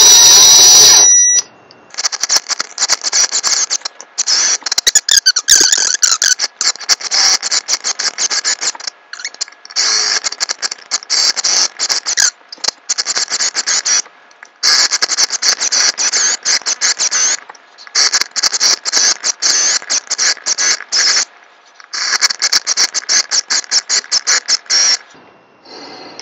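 Cordless drill with a 25/64-inch (9.92 mm) bit enlarging tuner holes in a wooden guitar headstock. The bit cuts the wood with a chattering scrape in about six spells of a few seconds each, with brief pauses between them, after a loud burst at the start.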